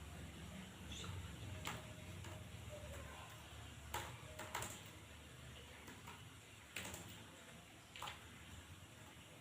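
Computer keyboard keys struck one at a time: about five sharp, separate clicks at uneven gaps, over a low steady hum.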